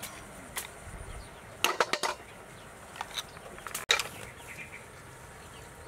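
A few sharp clicks and clacks of a steel knife blade against freshwater snail shells as the meat is prised out, loudest in a quick cluster a little under two seconds in and again near four seconds.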